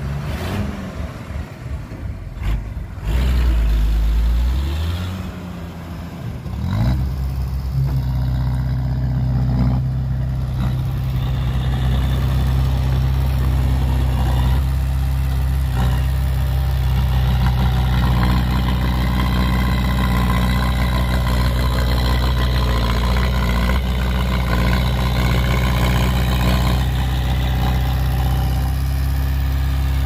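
Diesel engine sound from heavy earthmoving machines. For the first few seconds the pitch glides and surges, as a dump truck's engine works while tipping its bed. From about seven seconds in, a small Komatsu D20A crawler bulldozer's diesel runs steadily with a deep, even note.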